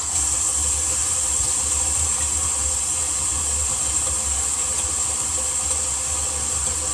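Water running steadily from the tap into the sink and down the drain, a constant rushing hiss that comes on suddenly: the newly glued sink trap being tested for leaks.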